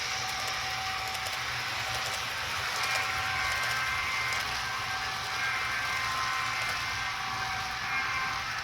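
HO-scale ScaleTrains ES44 model locomotive running steadily at speed step 20, its DCC sound decoder playing diesel engine sound through the model's small speaker.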